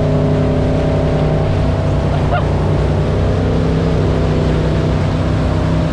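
Wakesurf boat's inboard engine running at a steady pitch while towing a surfer, with the rushing wash of the wake.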